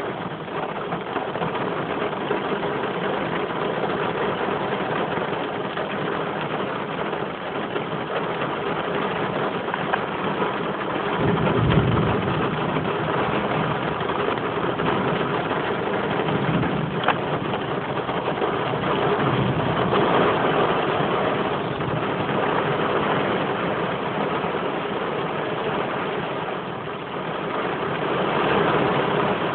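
Heavy rain falling in a severe thunderstorm, a steady hiss, with a low rumble of thunder a little over a third of the way in and more rumbling a few seconds later.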